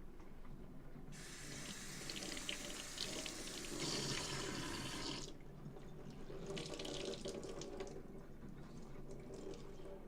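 Cuisinart PurePrecision CPO-850 pour-over coffee maker hissing and sputtering at the end of its brew cycle as the last hot water is pushed through: a steady hiss from about a second in for about four seconds, then shorter crackly spurts.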